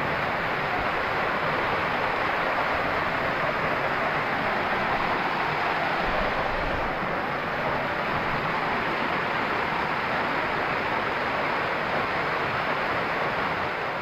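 Small waterfall pouring down rock ledges into a pool: a steady rush of falling water.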